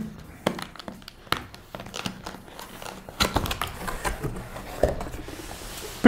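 Box being opened and packaging handled: plastic crinkling and rustling, with scattered light clicks and knocks.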